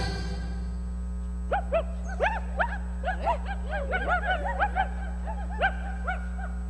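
A string of short, high, rising-and-falling yips and whimpers, several overlapping, like puppies crying, starting about a second and a half in and stopping near the end, over a steady low hum.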